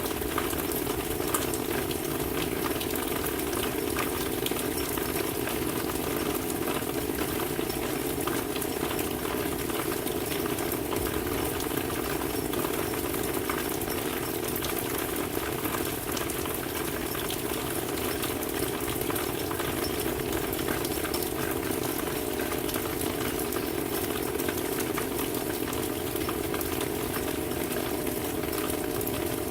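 Steady rainfall: an even hiss dense with fine drop ticks that keeps up without a break.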